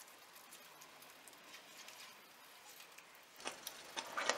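Faint hiss, then about three and a half seconds in, a silicone spatula starts stirring and scraping a thick milk and ricotta mixture around a nonstick pan, with irregular clicks, as the mixture is cooked down to thicken.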